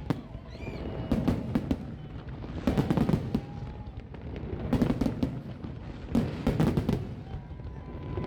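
Fireworks display going off: volleys of bangs and crackling bursts come in clusters every second and a half to two seconds.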